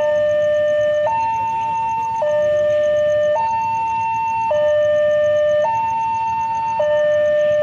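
Railway level-crossing warning alarm sounding for an approaching train: a steady electronic two-tone signal alternating between a low and a higher tone about once a second.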